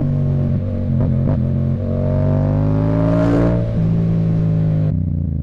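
Yamaha MT-07's parallel-twin engine running loud through a Mivv exhaust with its baffle removed, while riding at a steady pace. A rising whine comes in from about two seconds in to about three and a half seconds.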